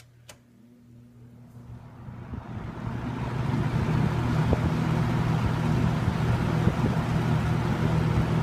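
A 1983 Kmart (Lakewood) K-223 20-inch box fan is switched on to high with a click. Its motor hums briefly, then the air noise builds over about three seconds to a steady run. There is a bit of cabinet vibration from a slightly out-of-balance blade.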